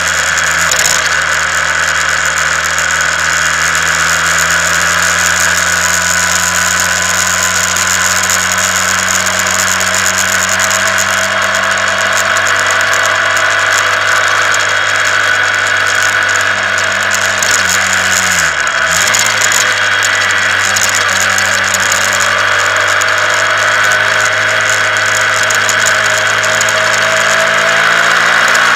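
Honda CBR125R's single-cylinder four-stroke engine running steadily under way, heard from the bike with rushing wind noise on the microphone; the engine note dips briefly and comes back up once, about two-thirds of the way through.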